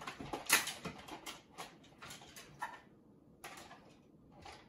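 Kitchen utensils clattering and clinking while someone rummages for a utensil to stir with: a string of light clicks and knocks, the loudest about half a second in.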